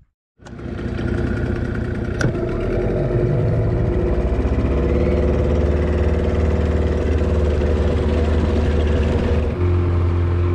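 Small boat's engine running steadily after a cut, its note picking up slightly about three seconds in and changing again near the end, with a single sharp click about two seconds in.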